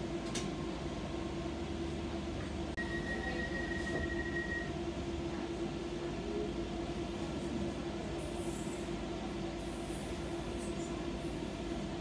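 Docklands Light Railway train running along the track, heard from inside the front of the car: a steady rumble of wheels on rail under a constant hum. A thin high tone sounds for about two seconds a few seconds in.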